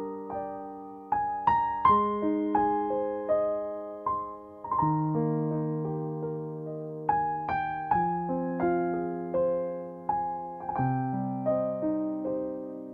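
Background music played on a keyboard: single notes and chords struck one after another, each left to ring and fade.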